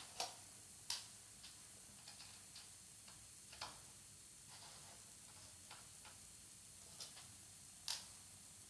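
Sharp small metal clicks and taps at irregular intervals, several seconds apart, from a small screwdriver working the tiny bottom-case screws of a MacBook Pro and the screws being taken out.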